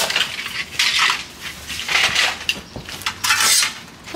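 Roofing debris being cleaned up off pavement: a run of scraping, crunching strokes, about one a second.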